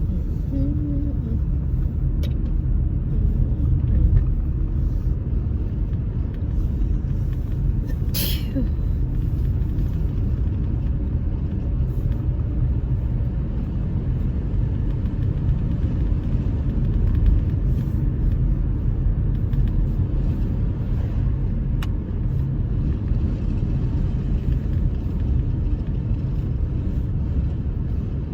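Steady low rumble of road and engine noise heard inside a moving car, with one sharp click about eight seconds in.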